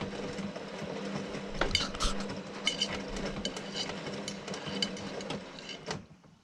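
Hotpoint WMA40 washing machine running its wash: a steady motor hum under irregular clinks and knocks as the drum turns the load. It cuts off sharply about six seconds in.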